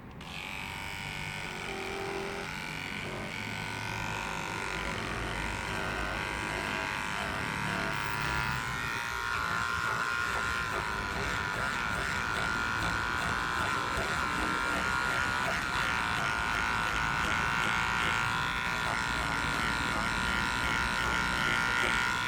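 Electric shaver running steadily as it is drawn over a car's fuzzy parcel-shelf fabric, shaving off the pilled fibres. A continuous motor whine starts at once and grows a little stronger and clearer from about nine seconds in.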